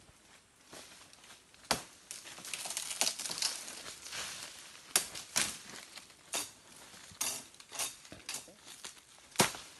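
Dry bamboo and palm stems being chopped and snapped while clearing bush: about seven sharp cracks at uneven intervals, the loudest near the middle and near the end, between crackling rustles of dry fronds and debris.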